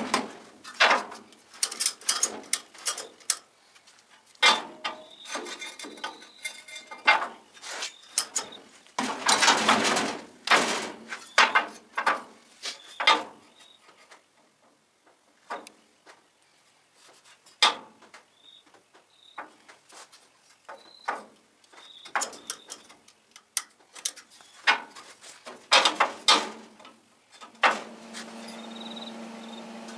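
Steel clunks and knocks as a 1932 Ford front cross member is shifted and set into place between steel chassis rails, with scattered irregular impacts and scrapes. A steady hum starts near the end.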